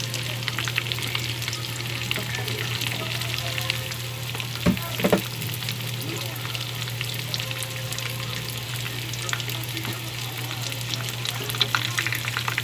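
Chicken pieces frying in hot oil in a pan, a steady sizzle full of small crackles and pops, over a low steady hum. Two sharp knocks about five seconds in.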